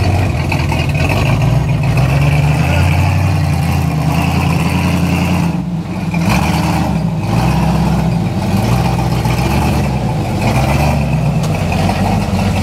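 Built 350 cubic-inch V8 of a propane-fed rock-crawling buggy, its engine note rising and falling as the throttle is worked on a rock climb, with a brief drop about halfway through.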